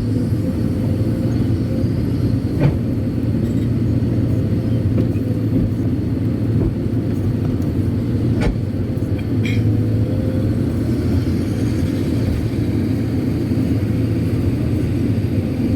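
Kobelco SK200-8 Super X excavator's diesel engine running steadily while digging and loading laterite, with a faint whine over the rumble. A couple of brief sharp clicks, one about three seconds in and one about eight seconds in.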